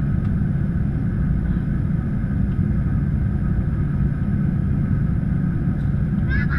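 Airbus A319 jet cabin noise while taxiing: a steady low rumble from the engines and airflow, with a faint steady whine above it. A voice begins just at the end.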